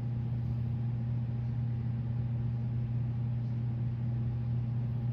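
Steady low hum of room tone, even throughout, with no other sound over it.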